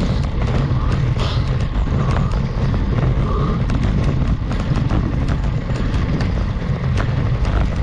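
Steady low rumble of wind and road noise on an action camera's microphone as a road bike climbs a steep grade, with scattered small clicks.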